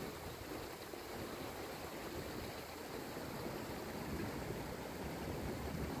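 Rain falling steadily on the surface of a koi pond, heard as an even, continuous hiss of water.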